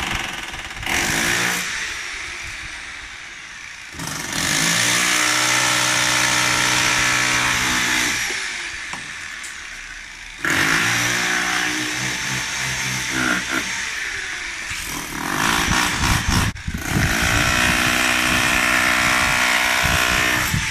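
Handheld electric power tool breaking up the concrete of a balcony floor, running in several bursts of a few seconds each with short pauses between.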